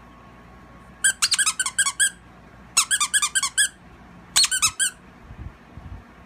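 Squeaky plush dog toy being chewed by a puppy: three quick runs of rapid high squeaks, about eight a second, then a few soft low bumps near the end.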